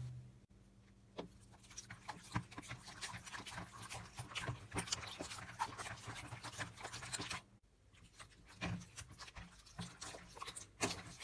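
Slime being squeezed and worked by hand: a dense run of small sticky clicks and crackles, breaking off briefly about seven and a half seconds in, then sparser clicks.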